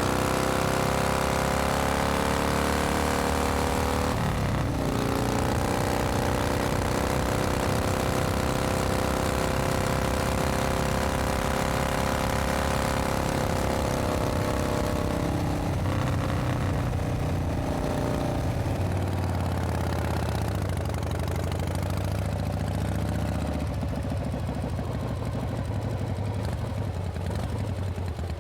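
Harley-Davidson Panhead V-twin motorcycle engine running on a ride, its pitch gliding up and down, with a break about four seconds in like a gear change. It eases off in the last few seconds.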